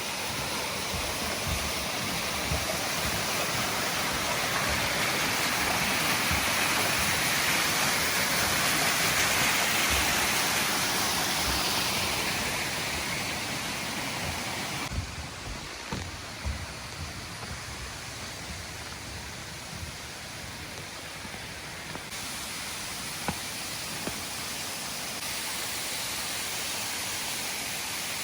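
Rushing water from a mountain stream or waterfall, a steady hiss that swells to its loudest about a third of the way in and then fades. Small soft knocks of footsteps on the trail are scattered through it.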